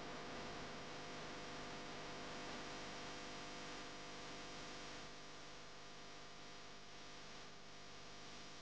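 Steady hiss of a car's cabin while driving slowly, with a faint steady hum running through it.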